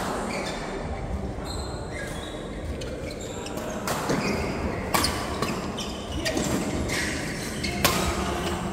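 Sharp ball or racket hits of play in a doubles match: three in the second half, the first two about a second apart and the third about three seconds later and loudest, over a steady noisy background.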